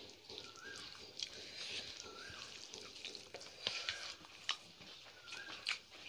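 Fingers mixing and scooping rice and curry on ceramic plates, with soft wet squishing and scattered sharp clicks against the plates. A short high chirp that rises then levels off repeats about every second and a half.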